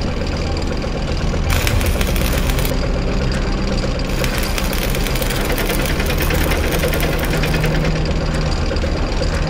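Tank engines running steadily, a low droning hum, with a harsher hissing noise laid over it twice, from about one and a half seconds in and again from about four seconds to nearly eight.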